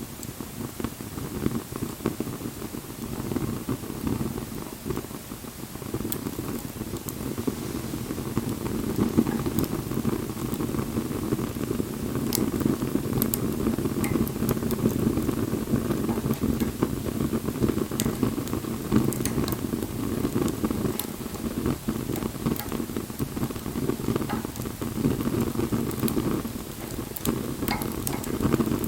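Wood bonfire burning: a steady low, fluttering rumble of flames with scattered sharp crackles and pops.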